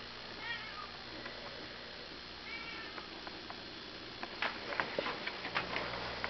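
A cat meowing twice, two short rising-and-falling calls about two seconds apart, followed in the second half by a series of light, sharp clicks.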